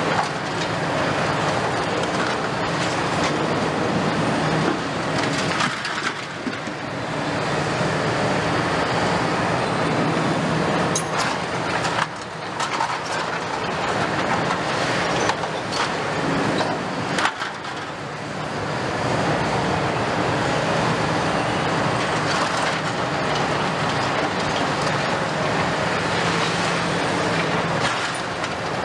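Kobelco hydraulic excavators working a pile of concrete rubble: a steady diesel engine hum under continuous crunching and cracking of broken concrete being crushed by the attachment, with a few sharp knocks midway.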